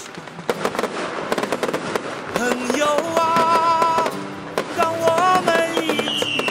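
Festival fireworks and firecrackers going off in rapid, dense bangs and crackles, with music playing over them. Near the end a high whistle starts and slowly falls in pitch.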